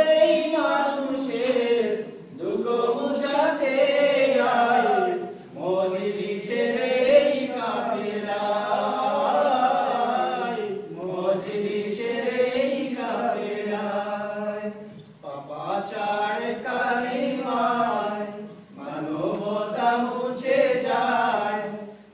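A group of men singing a Bengali anthem together without instruments. The song comes in sung phrases of a few seconds each, with brief breaks between them.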